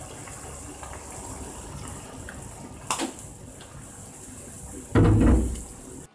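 Broth simmering and bubbling in a frying pan while a wooden spatula stirs it. A short scrape comes about three seconds in, and a brief, loud, low push or thud of the spatula through the pan about five seconds in.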